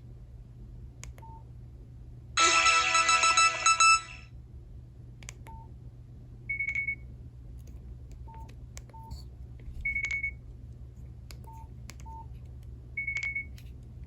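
Nokia 5610 XpressMusic phone speaker playing a short alert tone about two seconds in: a rapid, stuttering many-note chime lasting about a second and a half. Then come three short single beeps a few seconds apart, with faint clicks and soft low blips between them.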